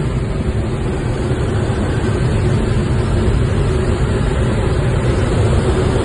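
Steady rush of air through a glider's cockpit in flight, buffeting the microphone.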